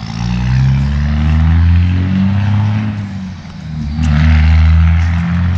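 A motor engine drones steadily, its pitch shifting up and down, fading briefly about three seconds in and swelling again a second later, like a vehicle going by.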